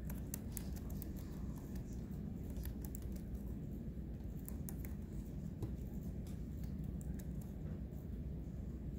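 Scattered light clicks of laptop keys being typed over a steady low room hum, thickest in the first few seconds and again about halfway through.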